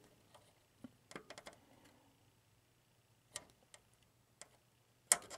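Faint scattered clicks and taps: a quick cluster about a second in, a few single ticks after that, and a sharper double click near the end.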